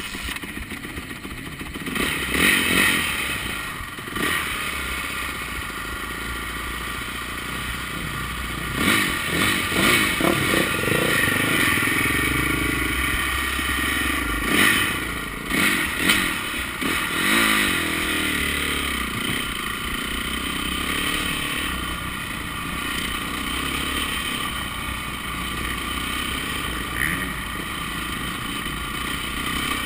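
Honda motocross bike engine running close to the microphone as the bike rolls along at low speed, revved up and down several times in the middle with short throttle blips.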